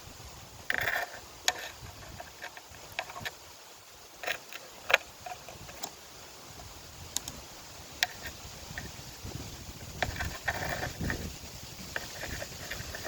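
Close handling noises: irregular sharp clicks and taps, with short bursts of rustling about a second in and again about ten seconds in.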